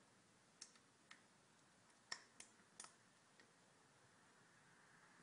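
Half a dozen faint, scattered clicks as batteries are pressed into a small wheel-light electronics module, the sharpest about two seconds in.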